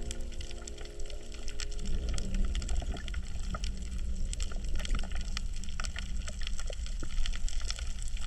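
Coral reef heard underwater: a dense, irregular crackle of small clicks and snaps over a steady low rumble of water. This is the "michimichi" sound that the uploader has heard called the breathing of coral, perhaps mixed with coral breaking as fish graze on it.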